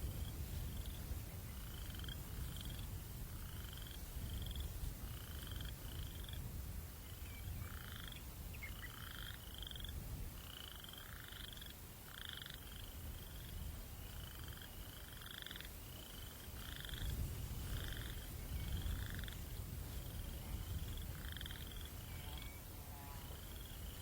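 Short chirping calls from a night-calling animal, repeated about twice a second in a steady rhythm, over a low steady rumble of wind.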